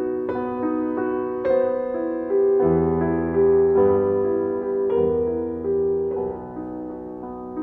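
Slow background piano music, sustained notes and chords, with deeper bass notes coming in about three seconds in.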